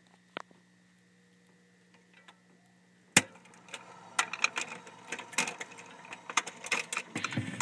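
Stylus set down on a spinning 78 rpm shellac record with one sharp click about three seconds in, followed by the irregular crackling and popping of the record's surface noise. Before it, a faint steady hum with a small click.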